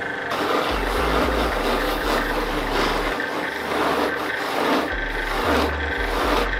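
Willow cricket bat pressed against a spinning waxed cloth polishing mop on a bench electric motor, buffing the back of the blade: a rough rubbing hiss that swells and eases again and again as the bat is worked across the wheel.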